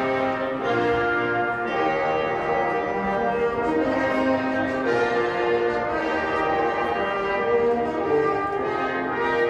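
Slow orchestral music led by brass, moving in long held chords.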